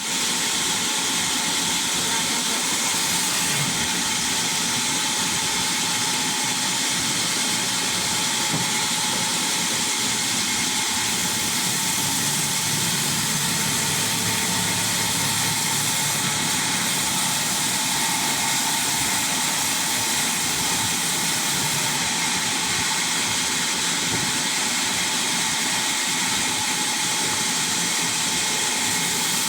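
Sawmill wood-cutting machine running steadily: a constant, unchanging hissing machine noise.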